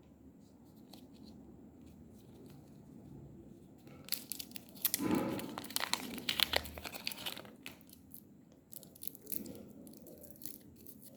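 A plastic chocolate-bar wrapper being torn open and crinkled by hand, a dense run of crackling starting about four seconds in, then sparser crinkles near the end.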